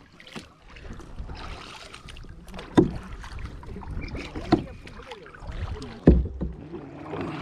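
Kayak paddling on a river: a low watery rumble with three sharp paddle strokes, about one and a half seconds apart.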